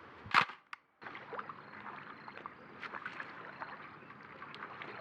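Single sharp shutter click of a fixed-setting snapshot film camera, about half a second in, then outdoor ambience with scattered light clicks.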